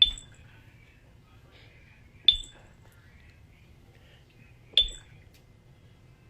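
Three sharp, high-pitched clinks or dings, about two and a half seconds apart, each ringing briefly.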